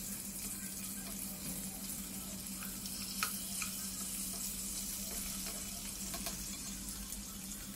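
Whole climbing perch (koi fish) shallow-frying in oil in a wok: a steady sizzle and hiss, with a few light clicks of a metal spatula as the fish are turned over about three seconds in. A steady low hum runs underneath.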